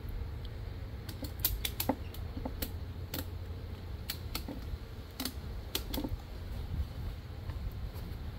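Ratchet strap being worked by hand over a beehive: a run of sharp, irregular metallic clicks from the ratchet, thickest from about one to two seconds in and carrying on sporadically until near the end, over a steady low hum.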